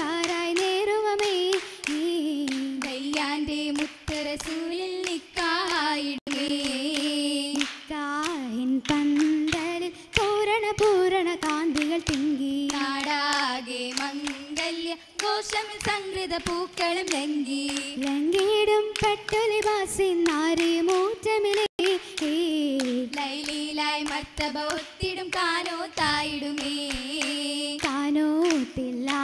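Girls' voices singing a Mappila oppana song together, one melody line without instruments, over the dancers' rhythmic hand claps.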